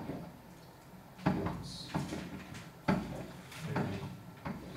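A few dull knocks and bumps, the two strongest about one and a half seconds apart, with low room noise between them.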